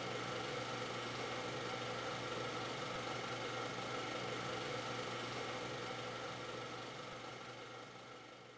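Steady mechanical whirring with a constant hum, fading out over the last couple of seconds.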